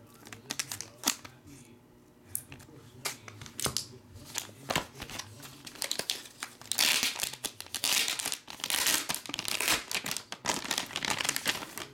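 Metallic foil trading-card pack wrapper crinkling and tearing as it is pulled open by hand: a run of sharp crackles, sparse at first and denser and louder in the second half.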